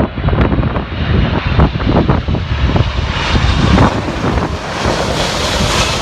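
Jet airliner on landing approach, its engine hiss and roar growing louder over the second half, under heavy gusty wind buffeting the microphone.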